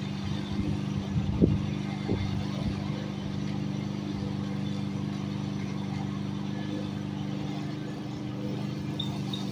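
Lawn mower running steadily with an even hum, with a couple of short knocks about one and a half and two seconds in.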